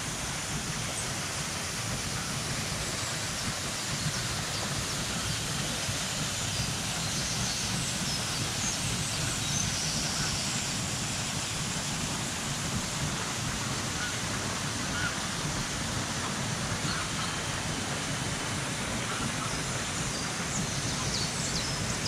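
Steady rushing of a waterfall and water tumbling over rocks, with a few faint high chirps over it now and then.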